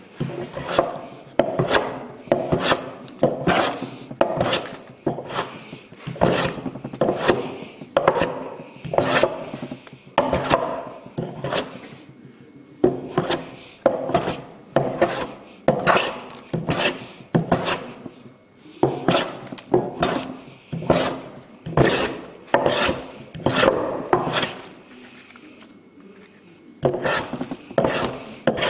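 Wooden hand plane shaving a timber board in repeated rasping strokes, a little more than one a second, with a few short pauses. The plane is taking the bandsaw-cut face down straight, level and smooth.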